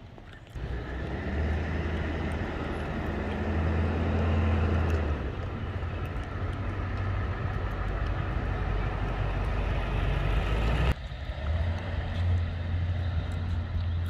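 Loud, steady low rumble of outdoor street noise. It starts abruptly about half a second in and drops suddenly about eleven seconds in.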